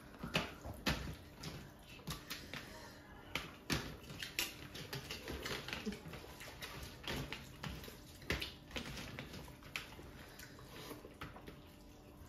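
Hands squishing and mixing rice and fish curry on steel platters, with wet smacking and irregular clicks of fingers against the metal as two people eat fast.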